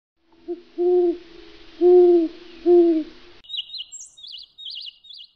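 An owl hooting: four low hoots over a faint hiss, a short one first and then three longer ones. About three and a half seconds in the hoots stop and a small bird's quick, high chirps take over, repeated several times.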